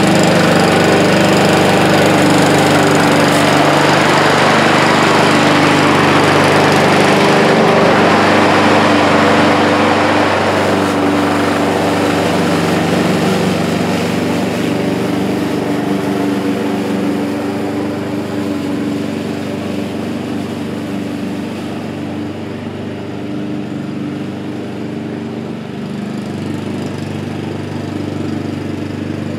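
Honda self-propelled walk-behind lawn mower's four-stroke engine running steadily while cutting grass. It is loudest for the first several seconds, fades as the mower moves away, and grows slightly louder again near the end.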